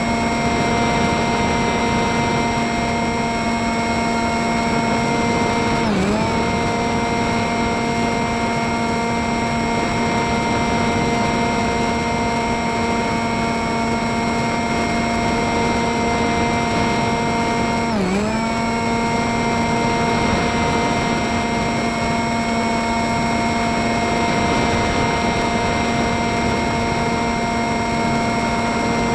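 RC model plane's motor and propeller whining steadily, heard from on board with wind rushing past. The motor briefly slows with a sharp drop in pitch and speeds back up twice, about six seconds in and again about eighteen seconds in.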